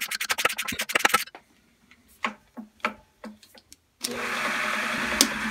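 A quick run of sharp clicks and a few scattered knocks, then about four seconds in the 3-in-1 mill-lathe combo's spindle motor switches on and runs steadily with a low hum, spinning the three-jaw chuck.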